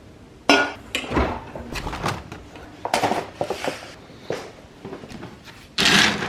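A run of knocks, bumps and clatters, about half a dozen, from objects being handled and set down in a small room. The last, about six seconds in, is a longer rattle.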